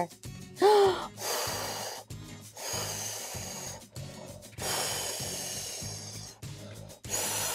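A person blowing out long, hard breaths, four of them in turn, each about a second long, the wolf's huffing and puffing at a house of sticks; a short grunt comes just before the first. Soft background music plays underneath.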